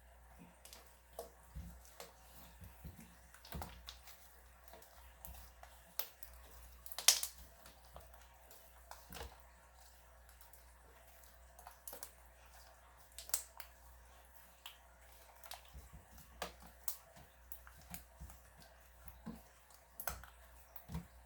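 Slime being squeezed and worked by hand, giving faint, irregular clicks and pops, with the loudest pop about seven seconds in.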